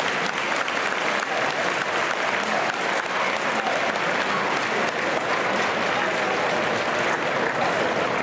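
Crowd of spectators applauding: many hands clapping at a steady level, with voices mixed in.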